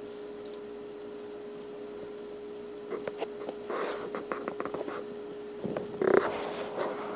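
A steady faint hum, joined from about three seconds in by a run of sharp clicks and short rustles, with a louder rustle about six seconds in.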